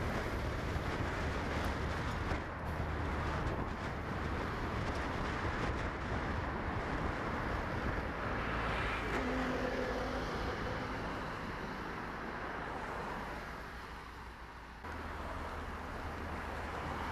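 Steady road noise of a moving vehicle, a low rumble under a hiss of tyres and wind, with a brief low hum about nine seconds in and a sudden change in the noise near the end.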